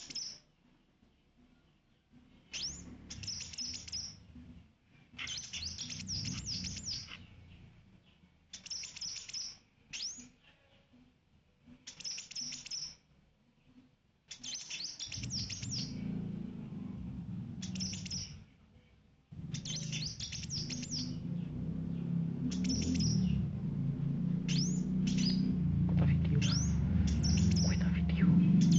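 A bird chirping in short bursts of quick, high, downward-sweeping notes, a burst every second or two with brief pauses between. A low rumble sits under the chirps and grows louder in the second half.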